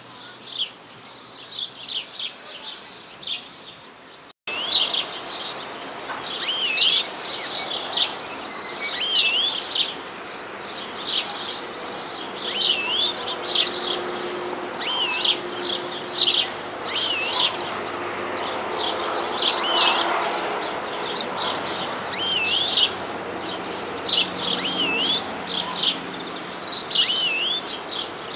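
European greenfinch singing: short, high, wavering trilled phrases, one about every second without a break. The first few seconds are fainter, and it turns louder and closer about four seconds in.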